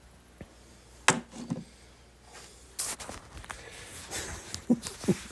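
Wooden furniture piece being knocked and handled: a sharp wooden knock about a second in, then scattered lighter bumps, rustles and clicks, as it is tested to see whether the repair holds.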